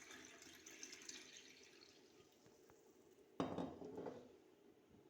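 Lemon juice drink trickling and dripping faintly. About three and a half seconds in comes a brief louder rush of liquid, followed by a smaller one.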